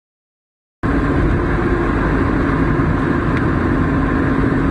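Silence for under a second, then steady road and engine noise from inside a vehicle driving along a highway, heaviest in the low end.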